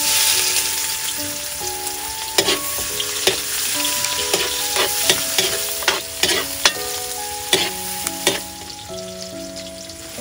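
Sliced red onions sizzling in hot oil in a large steel wok. A metal spatula scrapes and clinks against the wok about ten times through the middle as the onions are stirred.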